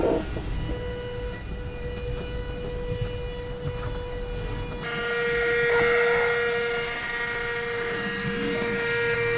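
Cordless handheld ION VAC vacuum running over a rug: a steady, high-pitched motor whine over the hiss of suction. The whine grows brighter and a little louder about halfway through.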